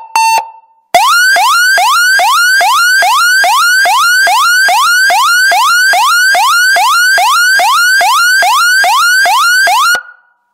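Electronic alarm siren through a horn speaker, sounding a fast repeated whoop: each tone sweeps quickly upward and snaps back, a little over twice a second. It starts about a second in and cuts off abruptly near the end. Just before it, the last pulse of a steady beeping tone ends.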